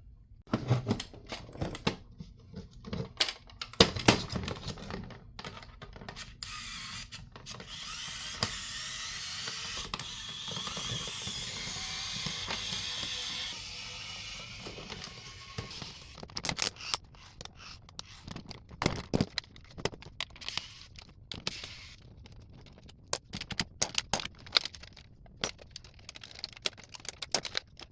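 Clicks, taps and rattles of plastic casing parts and small screws being handled and pried while a CD radio is dismantled by hand, with a steadier noise running for several seconds in the middle.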